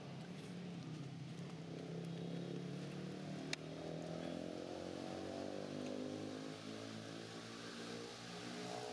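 A motor engine running steadily, its note shifting about four seconds in, with one sharp click midway.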